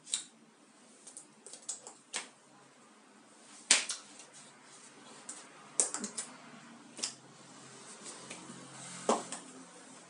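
Scattered sharp taps and slaps of hands striking each other and the body during sign language signing, the loudest a little over a third of the way in, over a faint low room hum.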